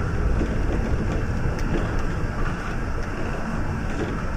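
City bus running along the road, heard from inside: a steady, even rumble of engine and road noise, with a few light clicks and rattles.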